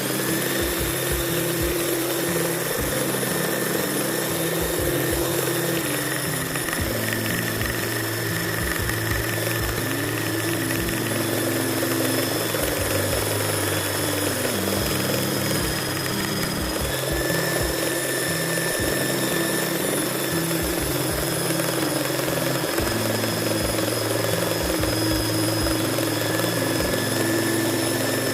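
Modern M-2561 belt sander (1200 W) running steadily, its motor giving a constant whine.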